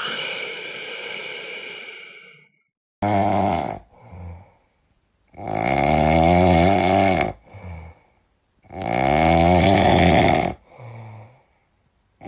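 Loud snoring in a slow rhythm: three snores about three seconds apart, the first short and the next two about two seconds long, each followed by a short, softer breath.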